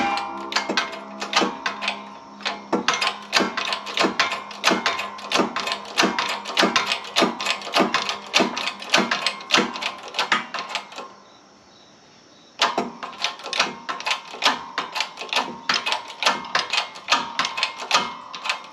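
Ratchet clicking in steady, quick runs of about four clicks a second while tightening a threaded wheel bearing press, forcing a new wheel bearing into the hub knuckle. The clicking stops briefly about eleven seconds in, then resumes.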